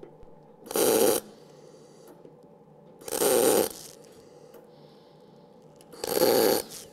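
MIG welding arc on thin sheet steel: three short tack welds, each a crackling burst of about half a second, roughly two and a half seconds apart.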